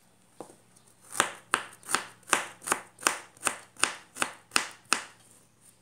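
Knife chopping ginger: a steady run of about eleven even strokes, nearly three a second, which stops about a second before the end.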